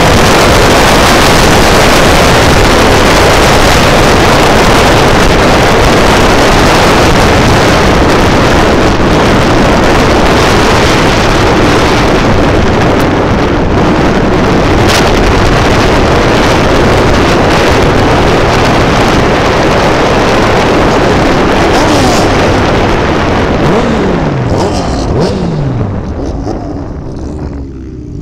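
Heavy wind rush over the microphone with a motorcycle engine running at highway speed. Near the end the noise drops as the bike slows, and the engine note falls twice.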